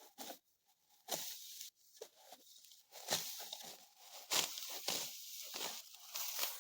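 Dry wheat stalks being cut by hand with a sickle: a series of irregular crisp, rustling cuts, roughly one or two a second.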